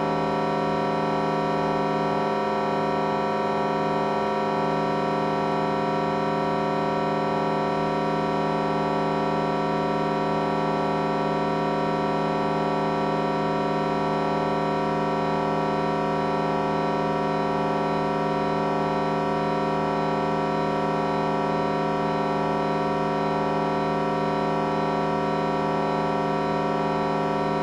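Vocoder-processed electronic sound effect: a dense, steady synthesized drone of many stacked tones, held unchanging throughout at a constant level.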